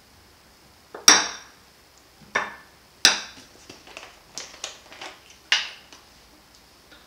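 Metal spoons clinking and tapping against bowls and dishes: a series of about ten sharp clinks and taps, the loudest about a second in.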